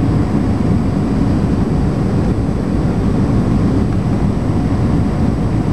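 Airbus A320 cabin noise on the landing approach: a steady, low rush of engine and airflow noise heard inside the cabin.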